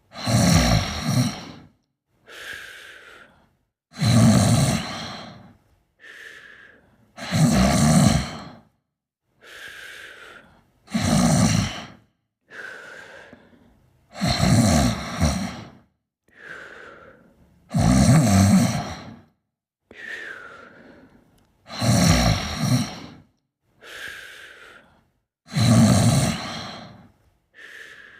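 Someone snoring in sleep: a loud, rough snore about every three and a half seconds, each followed by a quieter breath that ends in a short falling whistle.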